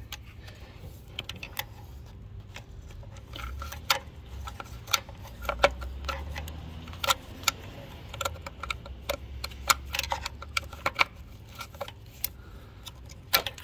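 Scattered sharp clicks and light metallic rattles of long-nose pliers working at plastic wiring-harness clips and connectors in an engine bay, over a faint low hum.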